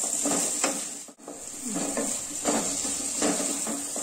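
Spatula stirring and scraping chopped yam and carrot through thick, sizzling masala in an enamel pot, in repeated strokes. The sound dips briefly about a second in.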